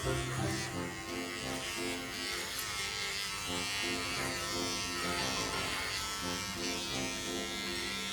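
Electric pet clippers buzzing steadily as they shave a golden retriever's long coat down for a summer cut.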